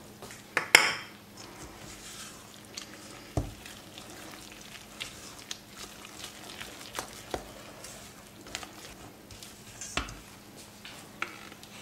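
Silicone spatula stirring thick cake batter in a stainless steel bowl: wet squelching and mixing with scattered scrapes and taps against the metal. A sharp tap comes just under a second in, and there are a couple of low knocks later on.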